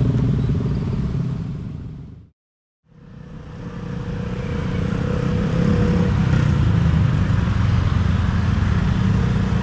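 Road traffic at a level crossing: motorcycles and cars running past. It fades out to silence about two seconds in and fades back in a moment later.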